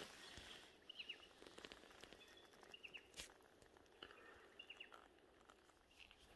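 Faint bush ambience in which a small bird gives short falling chirps in little groups, about five times, over a few light ticks and rustles.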